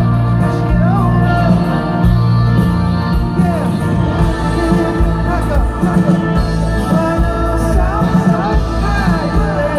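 Live rock band playing through a large arena sound system, recorded from the audience. A bending lead melody runs over a sustained low backing.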